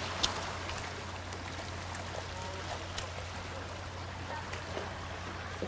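Sea waves washing steadily against the shoreline rocks, with a few faint clicks.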